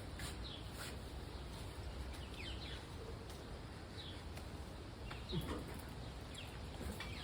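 Quiet outdoor background with several short bird chirps that fall in pitch, scattered through the stretch.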